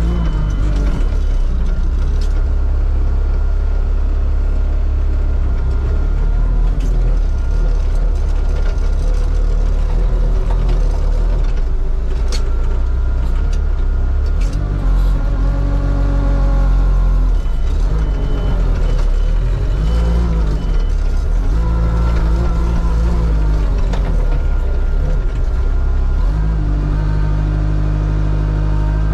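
Wolf mini780H compact wheel loader running under load, heard from inside its cab: a steady engine drone whose pitch rises and falls several times as the machine pushes and lifts snow, with a few sharp clicks and knocks.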